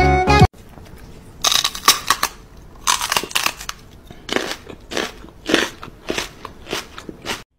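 Music cuts off about half a second in. Then come about a dozen short, crunchy mouth noises close up, in irregular bursts roughly half a second apart.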